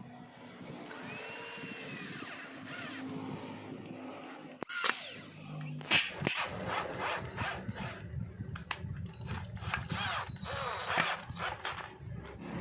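A 12-volt cordless drill driving a screw into wood. The motor runs steadily at first, then from about halfway there is a run of sharp, irregular clicks and knocks as the screw goes in.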